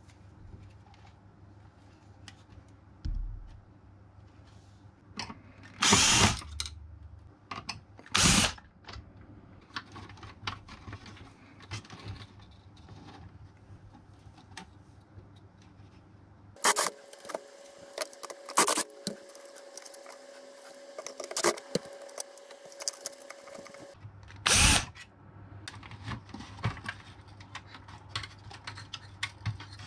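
Clicks and rattles of plastic casing, keys and circuit boards being handled while a cassette boombox is taken apart by hand. Several loud bursts of about a second each stand out, and a steady hum with sharp clicks runs for about seven seconds midway.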